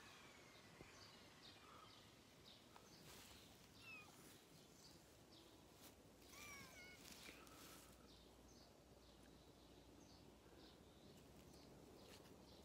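Quiet outdoor ambience with faint songbirds chirping in the background, short high chirps scattered throughout, and one brief wavering call about six seconds in.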